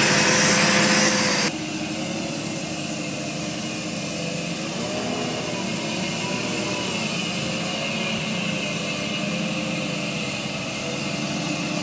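Nissan Diesel PKD 411 ten-wheeler truck's diesel engine running steadily as the truck drives slowly past, a droning note with a few held tones that waver slightly. About a second and a half in the sound abruptly drops in level and loses its hiss.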